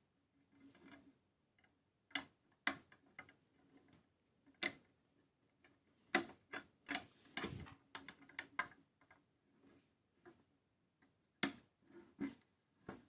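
Irregular small clicks and taps from handling and fitting the parts of a 1:24 diecast model car kit, with a few sharper clicks among them.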